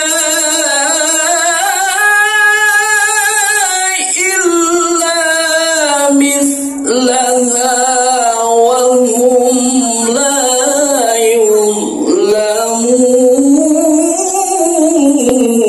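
Music with a single voice singing a slow melody in long held, wavering notes that glide between pitches.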